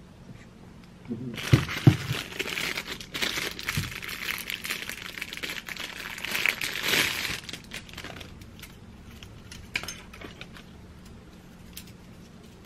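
Clear plastic wrapping crinkling as diffuser reeds are unwrapped, dense for several seconds and then thinning to a few light clicks and rustles. Two soft knocks come about a second and a half in.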